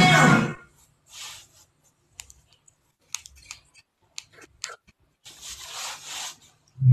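A music track cuts off about half a second in. Then come scattered sharp clicks and brief rubbing swishes: handling noise of a phone being picked up and moved.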